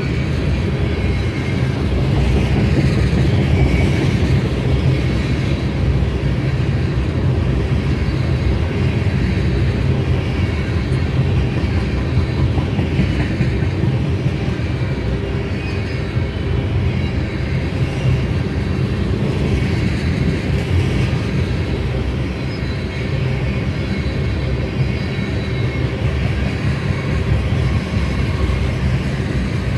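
A string of rail tank cars rolling past, a steady rumble of steel wheels on the rails, with faint high ringing tones coming and going.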